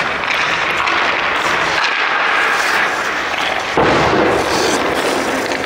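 Hockey goalie's skates scraping and sliding on rink ice as he shuffles across the crease: a loud, continuous scraping hiss that steps up suddenly about four seconds in.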